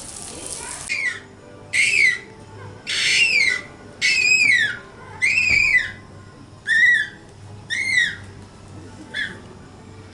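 Bottlenose dolphin giving a series of about eight short, loud whistling calls in air, each rising then falling in pitch.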